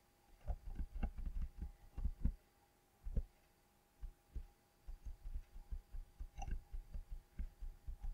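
Faint handling noise from the computer as the page is scrolled: short soft low thumps with a few small clicks. They come in a quick run for the first couple of seconds, then a few scattered ones, then another run over the last three seconds.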